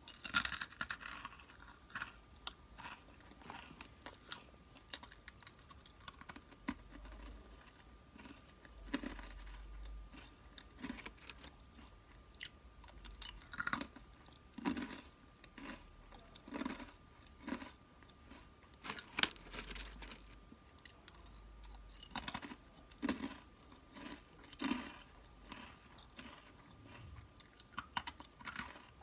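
Close-miked chewing and crunching of crisp snacks: irregular crackling bites and munching, with a sharp crunch about a second in and another loud one a little past the middle.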